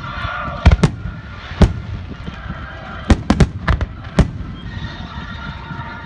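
Fireworks display going off close by: a string of sharp bangs at irregular intervals, several in quick succession around the middle, over steady background noise.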